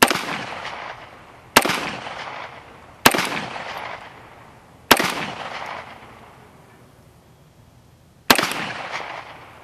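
Five shots from a Beretta 92FS 9mm pistol, fired at an uneven pace, one and a half to three and a half seconds apart, each trailing off in echo.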